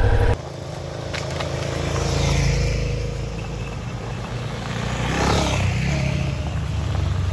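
Motorcycle engine running: a steady low engine note that changes abruptly about a third of a second in.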